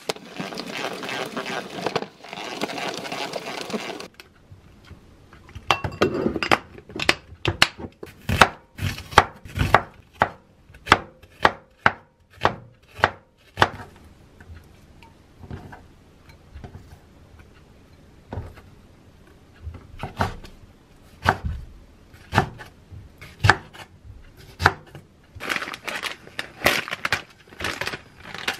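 Kitchen knife chopping on a wooden cutting board: a long run of sharp, separate knocks, one or two a second. It opens with a few seconds of rustling, and near the end plastic packaging crinkles.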